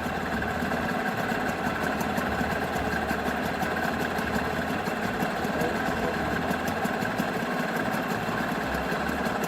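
Nissan 5 hp two-stroke outboard motor running steadily, with cooling water circulating through it.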